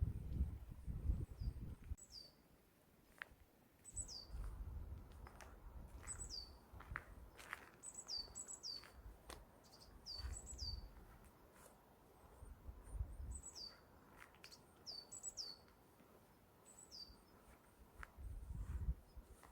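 Small songbirds giving thin, high down-slurred calls, repeated every second or so and often in quick pairs. Low gusts of wind rumble on the microphone come and go, at about four, ten, thirteen and eighteen seconds in.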